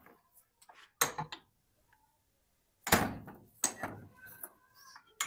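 Metal clunks and knocks as a rusty cast-iron hand-cranked meat grinder is handled and its crank handle is worked off the shaft. Two loud clunks come about one and three seconds in, with smaller knocks after them and one more near the end.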